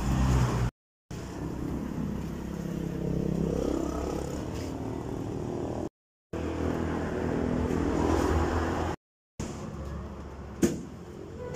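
Steady vehicle running noise from a moving car, broken by cuts between clips. In the last clip one sharp chop of a knife or cleaver on a cutting board as roast chicken is cut up.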